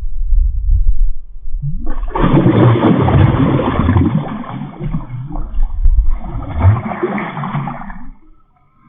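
Water rushing and gurgling, a low rumble at first, then a loud, uneven churning from about two seconds in that fades near the end.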